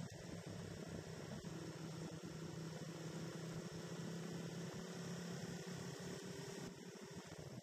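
Motorcycle engine running at a steady cruise, a low even hum heard muffled through the bike-mounted camera, with road and wind noise underneath.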